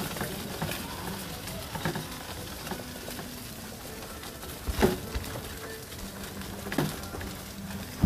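Footsteps crunching and crackling over a path of dry fallen leaves in a steady walking rhythm. Two heavier thuds land about five and seven seconds in.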